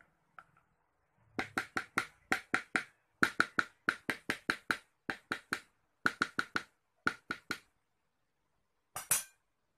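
A spoon knocking against the plastic bowl and blade shaft of a food chopper while scraping chicken meatball paste off them. The knocks come as a run of quick sharp taps in short bursts, about five or six a second, followed by a brief scrape near the end.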